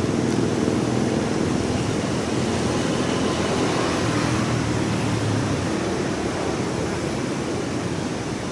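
Rough, storm-driven sea surf washing continuously onto a beach, a steady rushing noise.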